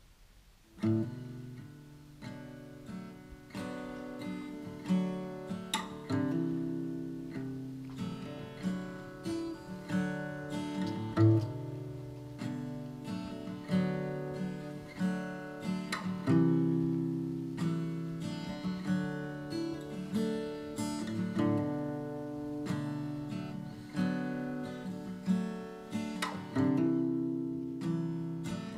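Acoustic guitar music, strummed and picked chords, beginning about a second in.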